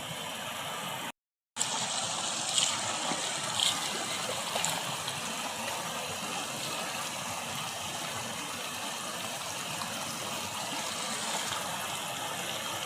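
Fast-flowing river rushing steadily, swollen with floodwater after rain. The sound cuts out for a moment about a second in.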